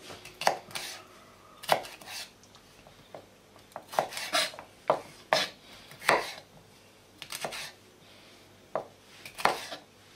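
Chef's knife chopping red bell pepper strips into small pieces on a plastic cutting board: about a dozen sharp knocks of the blade on the board at an uneven pace.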